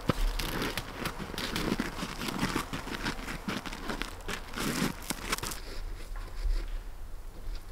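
Stretch film (plastic wrap) crackling and crinkling as it is pulled off the roll and wound around a tent frame, a busy run of crackles that stops about five and a half seconds in.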